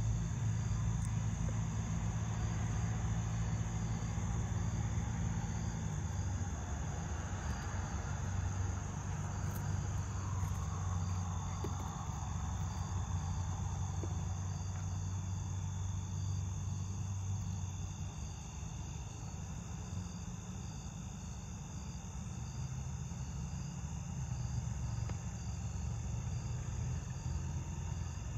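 Crickets and other insects chirping in a steady, continuous chorus, over a low hum that fades about two-thirds of the way through and returns near the end.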